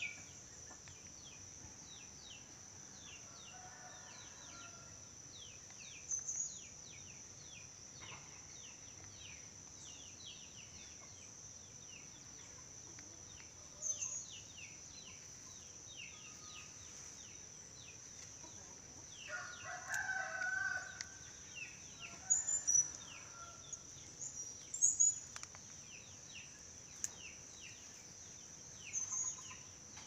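Background ambience: a steady high-pitched insect drone with many short bird chirps, and a rooster crowing once about twenty seconds in, followed by a few sharp high chirps.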